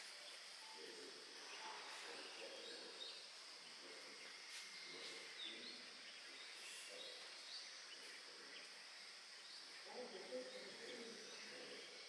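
Faint forest ambience: a steady insect chorus with short, scattered bird chirps over it, and faint distant voices now and then.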